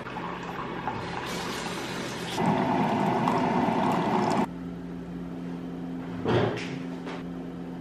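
Single-serve coffee maker brewing, pouring a thin stream of hot coffee into a ceramic mug; its pump runs louder and steady for about two seconds in the middle, then stops suddenly. A short clunk follows near the end.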